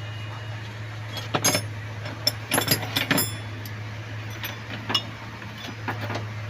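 Metal hand tools clinking and knocking against engine-bay metal while the throttle body's nuts, bolts and hoses are undone. A quick cluster of sharp clinks comes between about one and three seconds in, then a few single clinks, over a steady low hum.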